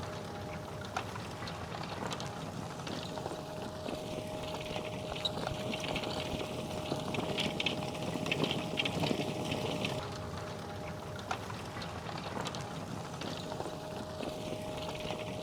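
Fendt 936 Vario tractor running steadily under load while ploughing, with a constant whine in its engine note. A patch of light crackling comes in about halfway through.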